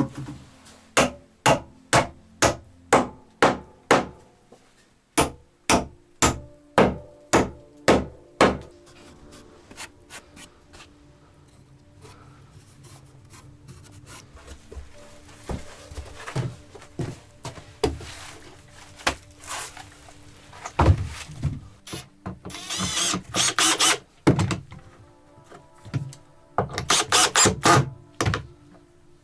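Tool blows on wood: a steady series of sharp knocks, about two a second, for the first eight seconds, then scattered lighter knocks and two spells of rough scraping.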